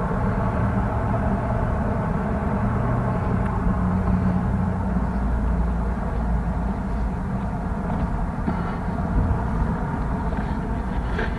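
Wind buffeting the built-in microphone of a ThiEYE T5e action camera, a steady low rumble.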